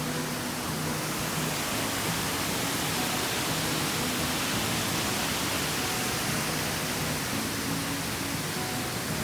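Steady rush of water from a canyon creek and waterfall, an even loud hiss without change.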